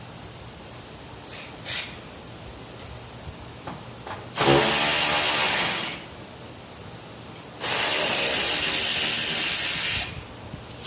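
A power tool run in two bursts, one of about a second and a half and one of about two seconds, with a brief sound shortly before them.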